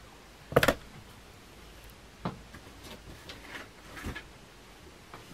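Handling noises of a diamond painting canvas in a clear plastic bag being rolled up and moved on a cutting mat: one sharp rustle about half a second in, then a few soft taps and rustles.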